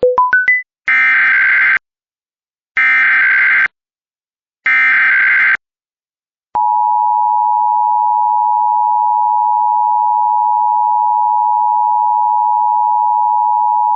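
Opening of an Emergency Alert System Required Monthly Test. Four quick beeps step upward in pitch, then come the three bursts of the SAME digital header, each about a second long with a second's gap. About six and a half seconds in, the steady two-tone EAS attention signal starts.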